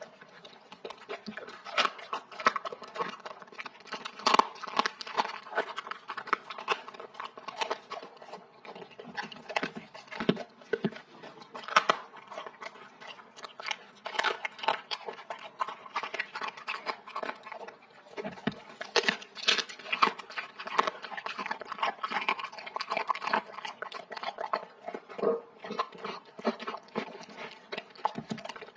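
A dog chewing and crunching food: a dense, irregular run of crunches and chews.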